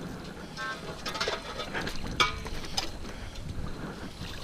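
Minelab CTX 3030 metal detector giving a short beep about half a second in, over irregular clicking and rattling.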